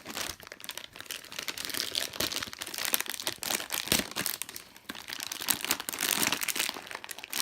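Packaging of a superhero blind bag crinkling and tearing as it is handled and ripped open by hand, with irregular crackles and rustles.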